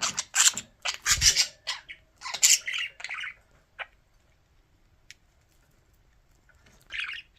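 Budgerigars squawking harshly in a quick run of bursts over the first three seconds, then one more squawk near the end, as the pair squabble over lettuce.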